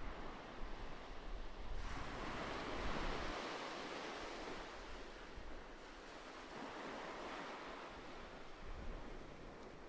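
A rushing, surf-like noise that swells suddenly about two seconds in and slowly ebbs away, with a smaller swell later on.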